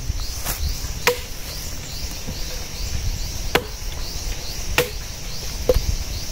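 Firewood being chopped: four sharp blows, irregularly spaced a second or more apart. A steady high chirping of insects runs underneath.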